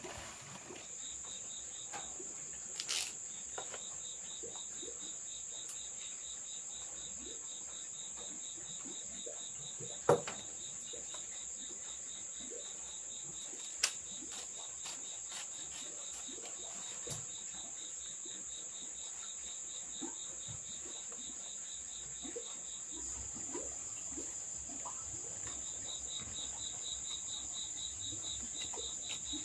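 Insects trilling in chorus: a steady high-pitched trill with a rapidly pulsing chirp at a lower pitch beneath it. A sharp knock sounds about ten seconds in and a lighter click about four seconds later.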